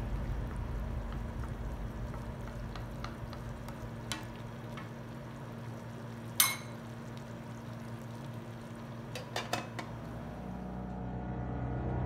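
Sardine-and-spinach stew simmering and sizzling gently in a frying pan while it is stirred, with a few light clicks and one sharp knock about halfway through.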